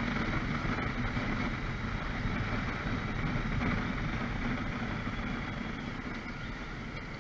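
Motorbike engine idling steadily while the bike stands still, slowly getting quieter over the last couple of seconds.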